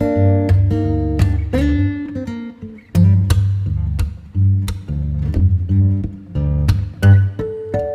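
Background music: acoustic guitar plucking and strumming over a steady bass line.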